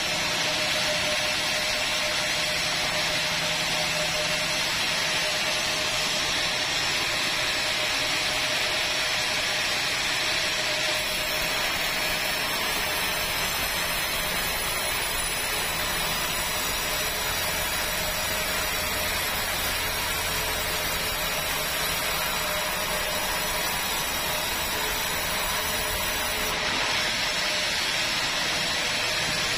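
Large sawmill band saw running and ripping a squared timber beam: a steady, even hiss with a constant tone underneath.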